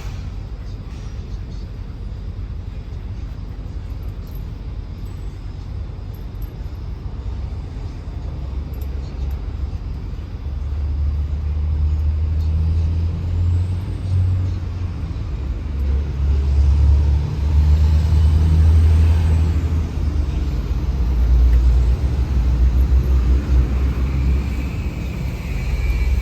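A truck engine running with a low rumble. It gets louder and uneven from about ten seconds in.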